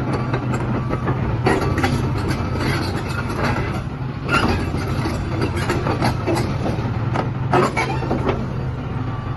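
Hitachi ZX350-3G hydraulic excavator's Isuzu diesel engine running steadily, with irregular clanks and knocks from the machine working.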